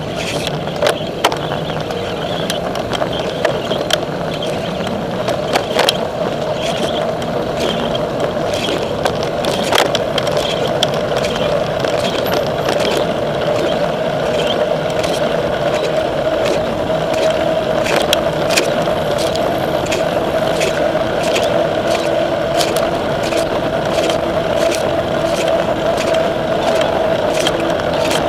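Bicycle rolling along a road: a steady rush of tyre and wind noise, with frequent irregular clicks and rattles.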